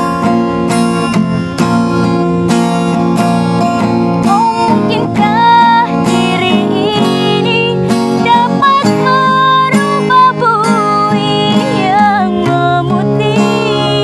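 Acoustic guitar strummed as accompaniment, with a woman's high singing voice coming in about four seconds in. She sings long held notes decorated with quick wavering turns (cengkok).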